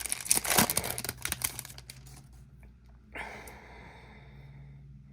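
Trading-card pack wrapper crinkling as it is torn open, with dense crackling in the first second and a half. Then it fades to a faint steady hiss that starts suddenly about three seconds in.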